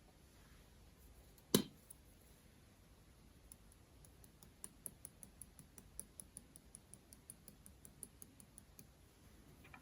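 Slime being squished and worked by hand: one sharp click about a second and a half in, then a run of small quick clicks and pops, several a second, from about four seconds in until near the end.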